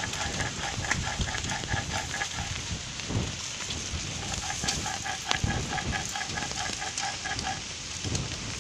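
An animal call: short pitched notes repeated quickly, about six a second, in two runs of a few seconds with a pause of about two seconds between them, over a low background rumble.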